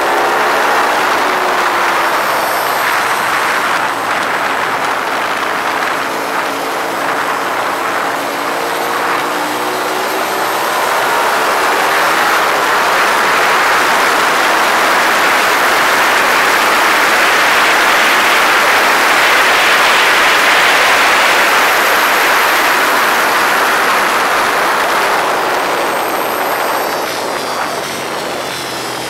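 Ducati 848's L-twin engine running at speed on track, largely covered by a loud wind rush on the microphone that swells toward the middle. The engine note shows through more clearly near the start and again near the end.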